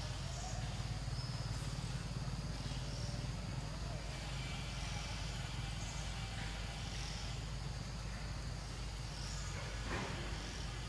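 Outdoor background: a steady low rumble with faint, short high chirps every second or two, and a brief rustle about ten seconds in.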